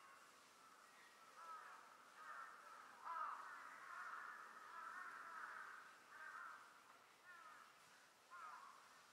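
Faint chattering animal calls: short chirps that glide up and down in pitch, coming in clusters, loudest around the middle.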